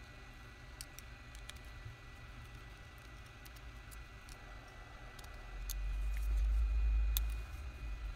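Scattered small clicks and taps of a plastic spudger and fingertips against a smartphone's mainboard shields and frame during disassembly. A low rumble rises about five and a half seconds in and is the loudest sound for about two seconds, under a faint steady high whine.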